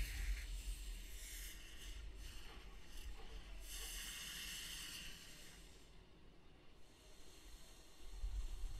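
Steam hissing from the Drilling Machine rock-drill show prop, over a steady low rumble. The hiss swells about four seconds in and dies down after about five seconds.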